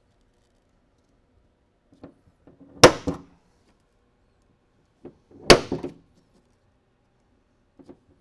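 Two sharp snaps of a spring-loaded automatic center punch firing into the metal truck bed, marking hole locations: one about three seconds in, the next two and a half seconds later.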